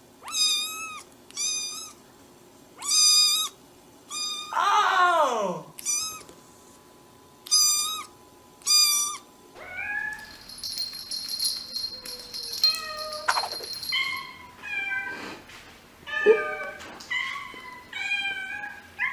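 Domestic cats meowing. First a kitten gives a run of about seven short, high meows a second or so apart, one of them longer and falling in pitch. About ten seconds in, other cats take over with quicker, shorter calls.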